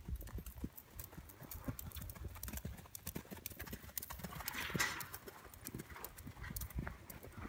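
Hoofbeats of a horse cantering on sandy arena footing, a quick uneven run of thuds that grows louder about halfway through as the horse passes close.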